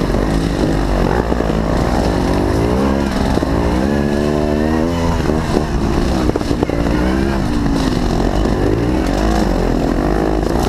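Trial motorcycle engines revving up and dropping back again and again under load on a steep, rocky dirt climb, with one long climbing rev held for a couple of seconds a few seconds in.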